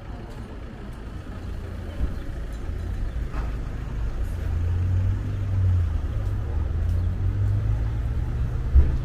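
A motor vehicle's engine idling, a low steady rumble that grows gradually louder. A short sharp thump near the end.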